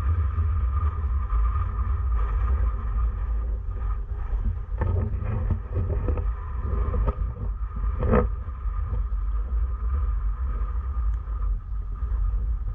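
Wind buffeting the camera's microphone, a steady low rumble, with a few short knocks between about five and eight seconds in.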